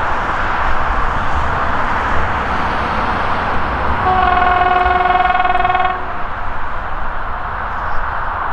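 Diesel locomotive horn: the C30-M shunting locomotive sounds one steady chord for about two seconds, about four seconds in, over a steady rushing background.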